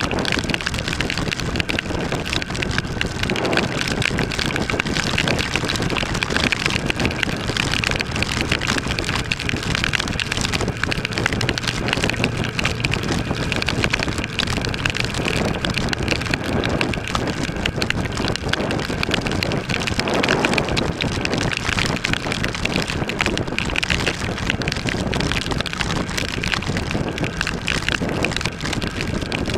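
Wind rushing over the microphone and heavy rain hitting it at riding speed on a 2013 Kawasaki ER6 motorcycle, with the bike's parallel-twin engine running steadily underneath.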